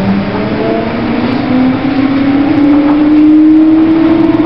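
Brussels T3000/T4000 tram (Bombardier Flexity Outlook) heard from inside the passenger cabin, its electric traction drive giving a whine that rises steadily in pitch as the tram pulls away and gathers speed, over the running rumble of the car. The whine levels off near the end.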